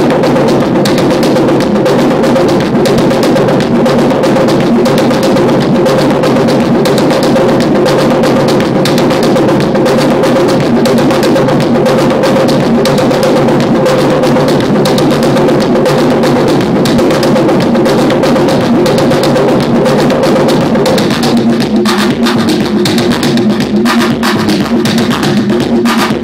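Loud live electronic dance music played on hardware drum machines and synthesizers: a dense, driving machine beat under a held drone. About 21 seconds in the drone drops out and sharper percussive hits stand out.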